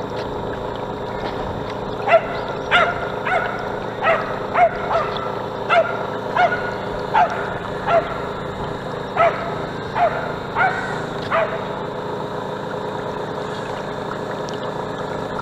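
Steady running of the model lifeboat's motor, with a run of about fourteen short, sharp pitched animal yelps from about two seconds in until a few seconds before the end.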